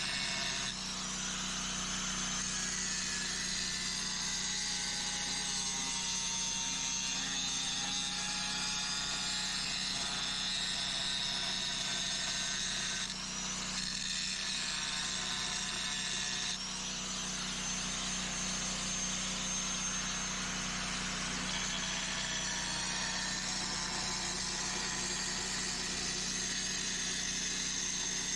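Angle grinder running against steel, its high whine wavering as it bites, with short breaks about 13 and 16 seconds in, over a steady low hum.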